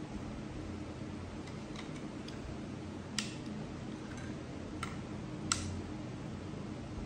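Small clicks and ticks of a screwdriver working against a plastic part: a few faint ones, then three sharper clicks about three, five and five and a half seconds in, the last the loudest, over a steady low hum.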